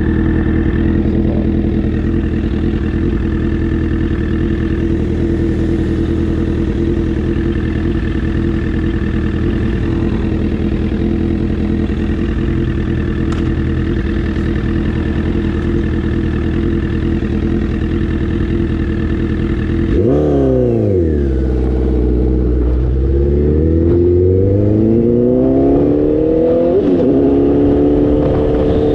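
2008 Yamaha R6's inline-four engine, fitted with an Akrapovic megaphone exhaust, idling steadily at a stop. About twenty seconds in it revs and pulls away, climbing in pitch as it accelerates, with an upshift near the end.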